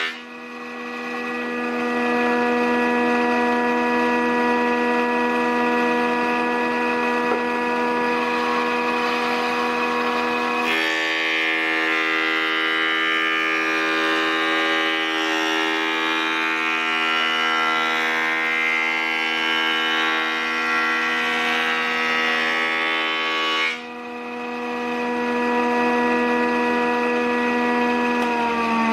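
JET JPM-13 planer/molder running with a steady high whine. About eleven seconds in, a board feeds through and the cutterhead cutting wood adds a harsher noise for some thirteen seconds; then the machine runs free again and winds down in pitch at the very end as it is switched off.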